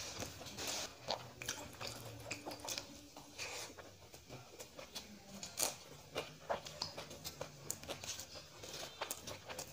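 Close-miked chewing and mouth sounds of a man eating rice mixed with fried beet by hand, a steady run of soft irregular smacks and small crunches.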